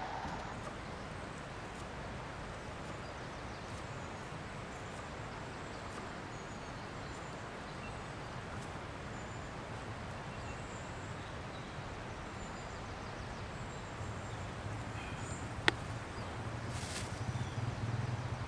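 Steady outdoor background noise with faint short high chirps now and then, a single sharp click about sixteen seconds in, and a low hum that grows louder over the last few seconds.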